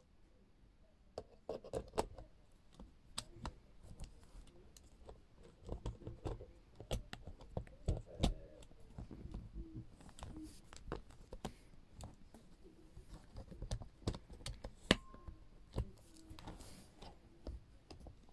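Hands handling a Canon AV-1 35mm film camera and its lens: irregular small clicks, taps and knocks of the camera parts, starting about a second in.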